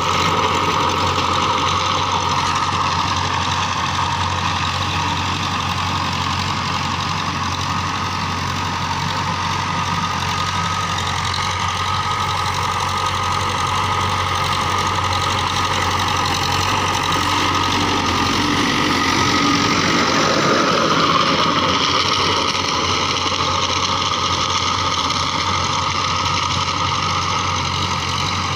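Farm tractor's diesel engine running steadily under load while pulling a rotary tiller through dry stubble, with the tiller's churning mixed in. The sound swells and shifts in pitch briefly about three quarters of the way through, then settles back.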